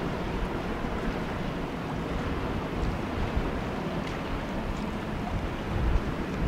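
Wind buffeting the microphone, a gusting low rumble, over the wash of choppy river water. The gusts pick up a little near the end.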